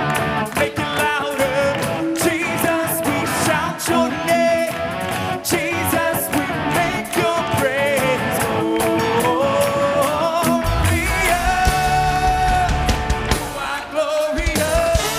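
Live worship band playing a rock song: a male lead singer with backing singers over electric guitar and drum kit. A heavy low end comes in about ten seconds in.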